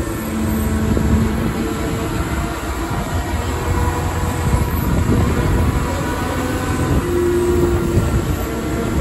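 Steady engine and road rumble from inside a moving bus, with a few short steady engine tones rising and falling over it.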